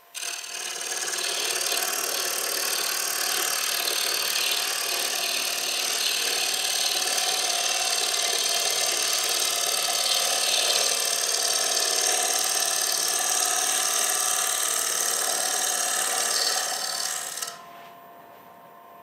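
Hurricane carbide finishing cutter shaving the outside of a bowl blank spinning on a Robust American Beauty wood lathe, a light final finishing pass: a steady hiss of cutting. It drops abruptly to a much quieter level about seventeen seconds in.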